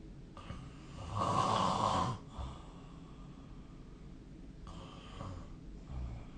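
A sleeping person snoring: a long, loud snore about a second in, then a fainter, shorter snore about two-thirds of the way through.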